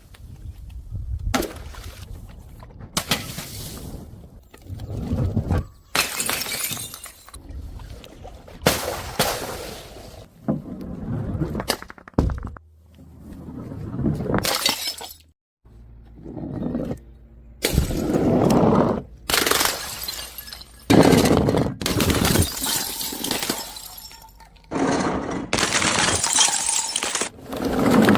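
Glass bottles smashing and shattering one after another, in a string of short, separate, abruptly cut events.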